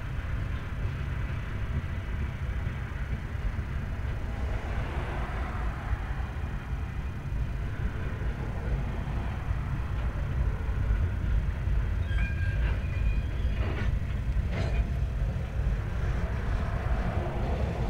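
Freight train cars rolling past on the rails with a steady low rumble. About two-thirds of the way through come brief high squeals and a couple of clanks.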